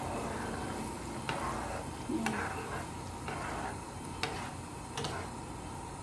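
A spoon stirring tomato-and-egg fish soup in a nonstick frying pan, over a steady sizzling simmer, with a few light clicks of the spoon against the pan.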